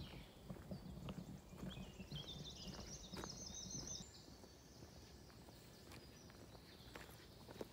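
Footsteps walking along a forest trail, with birds singing; a bird's rapid trill of repeated high notes runs from about two to four seconds in.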